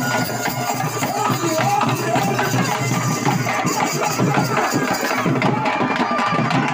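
Loud traditional festival music driven by fast, dense drumming, with a crowd's voices mixed in.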